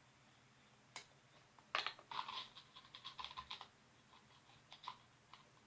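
Faint handling noises of slime-making ingredients: a single click about a second in, then a couple of seconds of small irregular scratchy, crackly sounds, and a few scattered ticks.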